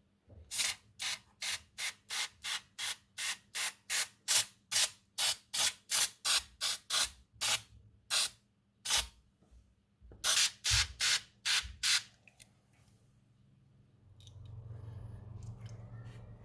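Quick squirts from a spray bottle, two or three a second, about two dozen in all, with a short pause partway through. Near the end a low steady hum starts.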